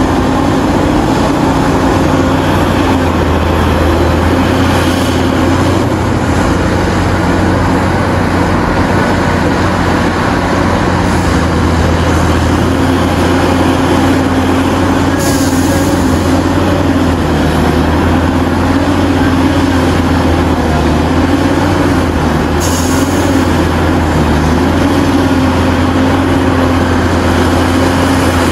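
Caterpillar 6015B hydraulic mining excavator's C27 diesel engine running steadily under load as the machine digs and swings: a loud, even low drone with a steady hum. Two brief hisses cut in during the second half.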